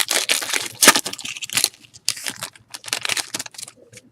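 Foil trading-card pack wrapper crinkling and tearing as a pack is handled and opened. The crackling is dense for the first second and a half, then thins to scattered crackles that die away near the end.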